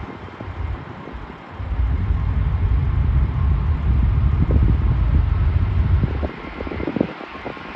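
Low rumble of an Emirates Airbus A380's four jet engines on the runway, mixed with wind buffeting the microphone. The rumble swells about a second and a half in and eases off after about six seconds.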